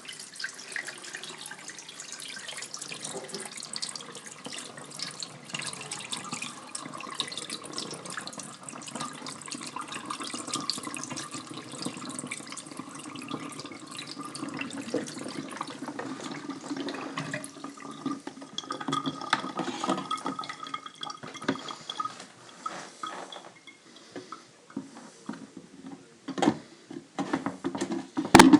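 Water running through the siphon of an ebb-and-flow hydroponic system, a steady rushing trickle that turns to gurgling after about 17 s as air gets into the siphon and it breaks. It then dwindles to scattered drips and splashes, with a sharp click just before the end.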